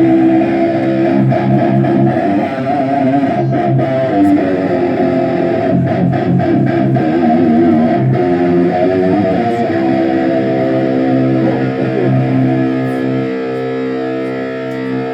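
Electric guitar played loud through its amplifier for a sound check: sustained chords and notes ring on, cutting off at the end.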